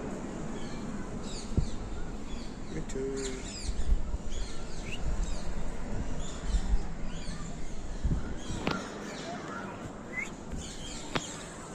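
Parrots giving many short, high chirps and squawks, each call falling quickly in pitch. A few low thumps and rumbles sound about four to seven seconds in.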